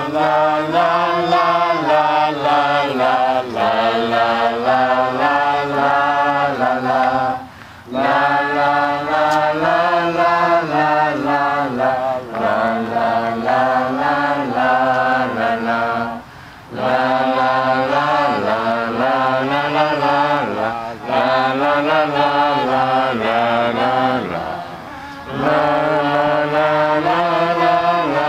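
A group of voices chanting together in unison, long held phrases with slowly wavering pitch, breaking off briefly for breath about every eight seconds.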